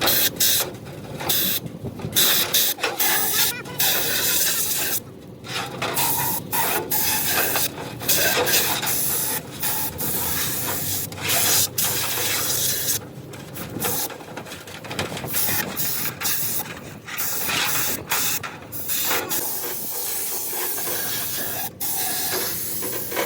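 Pressurised spray hissing in many short bursts, stopping and starting again and again.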